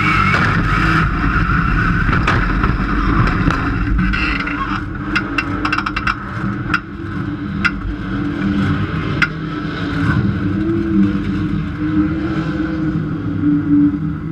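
Dirt-track race car's engine heard from inside the cockpit, running loud at first, then dropping to a lower, steady idle after about four seconds as the car comes to a stop. A scattering of sharp clicks and pops comes over the next few seconds.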